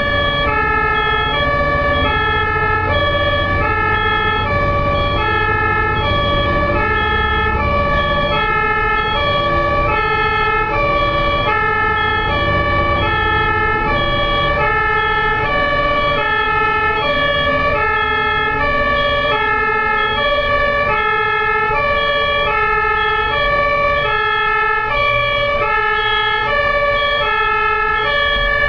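Two-tone hi-lo ambulance siren, alternating steadily between two notes, over the low rumble of road traffic.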